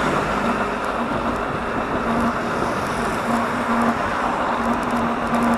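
Road traffic noise: a steady rush of cars on the road, with a low hum that comes and goes several times.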